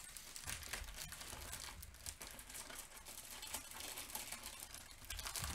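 Clear plastic wrapping around a rolled diamond-painting canvas crinkling faintly and irregularly as it is handled and unrolled by hand.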